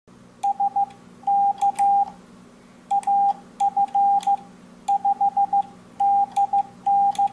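Morse code sent on an MFJ-564 iambic paddle through an MFJ-422D electronic keyer: the keyer's sidetone beeps out dits and dahs in about seven letter groups, with faint clicks from the paddle levers. The groups read as the call sign AF5DN. A steady low hum sits underneath.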